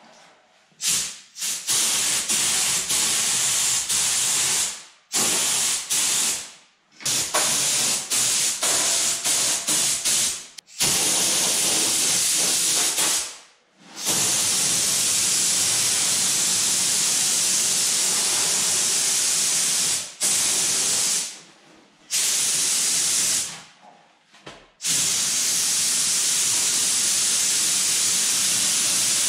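Gravity-feed compressed-air paint spray gun hissing as it sprays paint, cutting in and out as the trigger is pulled and released. It goes in short passes of about a second at first, then in longer passes of several seconds.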